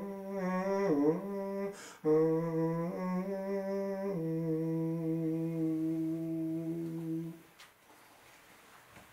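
A man's unaccompanied voice chanting plainchant in a small room. The melody moves in short steps and turns, pauses briefly for breath about two seconds in, then holds one long low note that ends a little after seven seconds.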